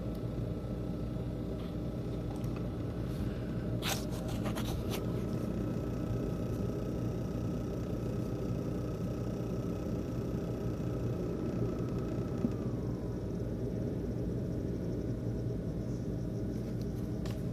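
ASUS X543UA laptop CPU fan running with a steady buzzing rattle, the sign of a faulty fan. A faint whine from it drops away about twelve seconds in, and a few sharp clicks come about four seconds in.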